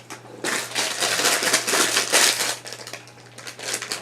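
Plastic packaging crinkling and rustling as a foam squishy toy is handled and squeezed, a long stretch of rustling followed by a quieter pause and more rustling near the end.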